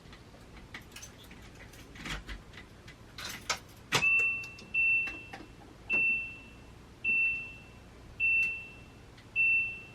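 Keys rattle and a sharp click sounds, then an electronic warning beeper in the RV sounds six times, about once a second, at a single high pitch. No engine cranks: the diesel bus still will not start.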